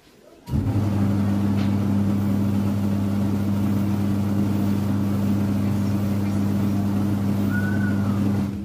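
A cobbler's finishing machine with spinning buffing wheels starts up about half a second in. It runs with a steady electric-motor hum and whirr, then shuts off near the end.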